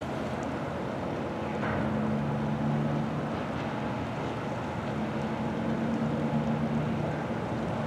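Harbourside ambience: a steady rush of wind and water with a low droning hum from a large ship's engines, which swells in twice, about a second and a half in and again about five seconds in.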